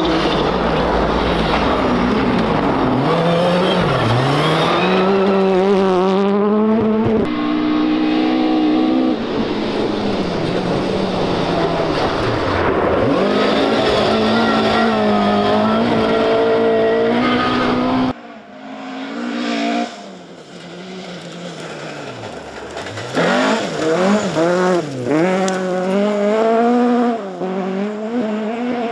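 Rally car engines revving hard on a gravel stage, pitch rising and falling through gear changes and lifts. The cars are an orange Mk1 Ford Escort and, near the end, a Fiat 131 Abarth accelerating away. A quieter spell comes about two-thirds of the way through, before the Fiat's engine takes over loudly.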